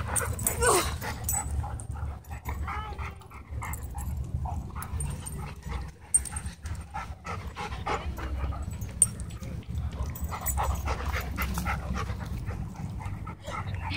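Dogs whimpering and panting after a scuffle, with one high whine falling in pitch about a second in and a few shorter whines later.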